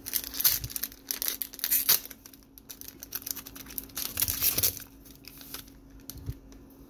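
Foil wrapper of a trading card pack crinkling and tearing as it is torn open by hand, in three bursts: at the start, about two seconds in, and around four seconds in.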